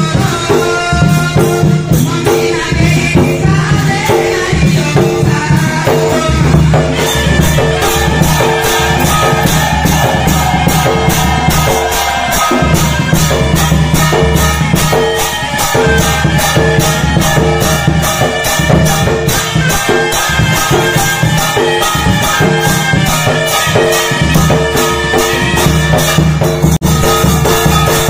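Odia folk band music: large dhol drums and brass hand cymbals keeping a steady, fast, rhythmic beat under a mahuri, a shawm-like reed pipe, playing the melody. The drums come in fuller about a quarter of the way in.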